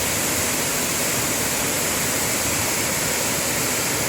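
Waterfall: water pouring continuously, a steady, even rushing hiss.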